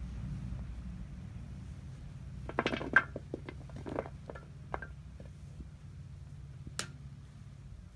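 Raw potato sticks tipped out of a cloth onto a steel plate, landing as a quick run of light taps and clatters between about two and a half and five seconds in, with one more tap near the end. A low steady hum runs underneath.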